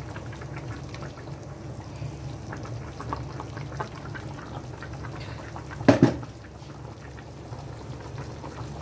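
Soy-sauce braising liquid simmering in a pan, with small bubbling pops over a steady low hum. About six seconds in, two sharp knocks.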